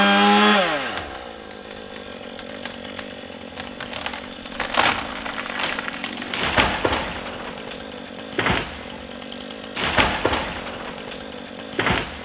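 Chainsaw running at full throttle, its pitch sliding down about a second in as the throttle is let off. It then runs on more quietly, with brief louder surges every second or two as it cuts into a tree trunk.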